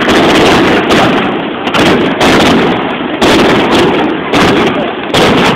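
Aerial fireworks shells bursting in quick succession, a loud bang about once a second (some seven in all), each trailed by a rumbling echo.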